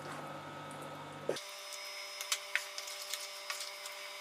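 Wooden spatula stirring and scraping thick yogurt masala curry in a pan, with a few short sharp taps and scrapes of the spatula against the pan, over a steady hum.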